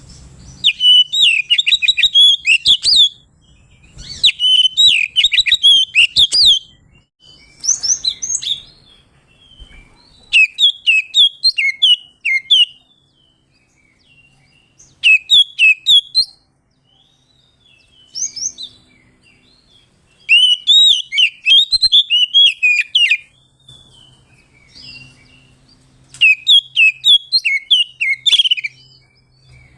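Oriental magpie-robin (kacer) singing loud phrases of rapid, varied whistled notes, each phrase lasting one to three seconds with short pauses between. It is a male's challenging song that calls out rivals.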